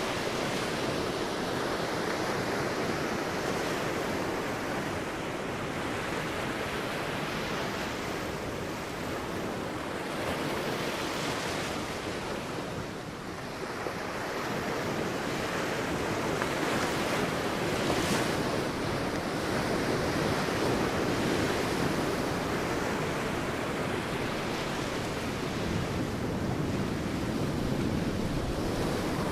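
Sea waves breaking and washing onto a beach, a continuous surf rush that swells and eases in slow surges, dipping briefly about halfway through. Some wind noise on the microphone.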